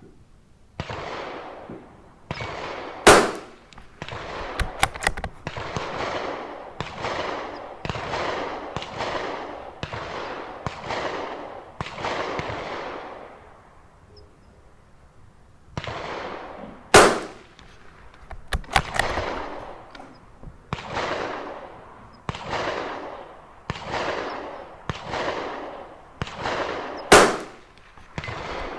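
A .22 LR Tikka T1x rimfire rifle fired three times, one sharp crack roughly every ten to fourteen seconds, each followed by a few light clicks of the bolt being worked. Between and under them runs a rapid string of fainter, echoing bangs, about one every three-quarters of a second.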